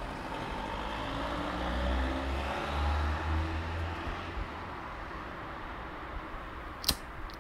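A deep, steady rumble with faint rising tones over it, strongest for the first few seconds and then settling into a low hiss. Near the end comes one sharp click, then a fainter one.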